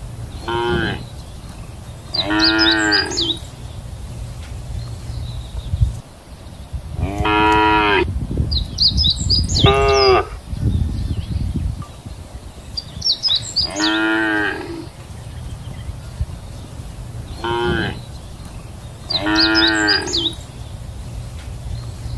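Cows mooing: about seven separate moos, some short and some drawn out, often a short one followed by a longer one, a few seconds apart, over a steady low rumble.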